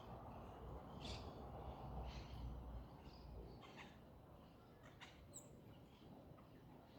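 Faint short bird chirps scattered through, over a low rumble.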